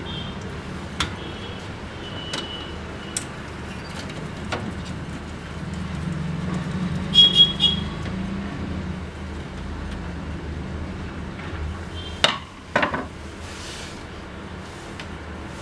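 Scattered sharp clicks and clacks of printer parts being handled and separated during disassembly. The loudest is a short cluster with a metallic clink about halfway through. A steady low hum runs underneath.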